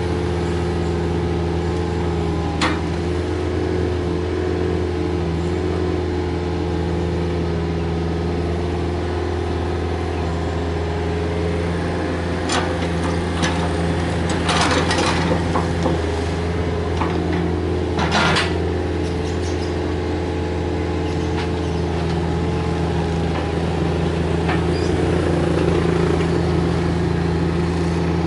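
Komatsu PC45MR mini excavator's diesel engine running steadily as it digs and loads. There are a few sharp knocks, and about halfway through a clattering rattle as a bucketful of soil is dumped into the steel dump-truck bed.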